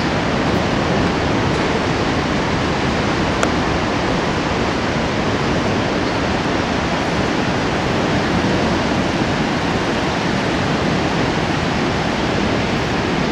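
Steady, unbroken rushing roar of whitewater river rapids.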